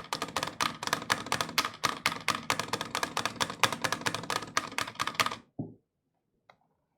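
Full-size mechanical keyboard typed on quickly in a sound test, a fast run of clacking keystrokes that stops about five and a half seconds in, followed by a single soft knock.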